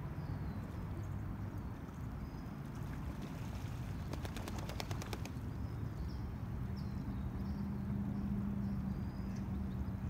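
Outdoor park ambience: a steady low rumble of distant traffic, with small birds giving short high chirps now and then. A quick run of about ten sharp clicks comes about four seconds in, and a low steady hum joins about seven seconds in.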